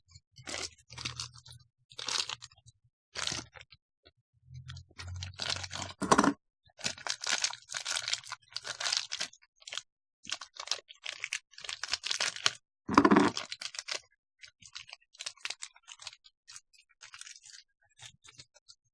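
Plastic packaging being handled and torn open, crinkling and crackling in irregular bursts, with a couple of louder knocks about six and thirteen seconds in.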